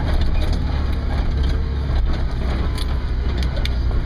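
Cabin noise inside a Ford Bronco crawling down a rough dirt trail: steady low engine and drivetrain rumble with road noise, and a few sharp knocks and rattles in the second half.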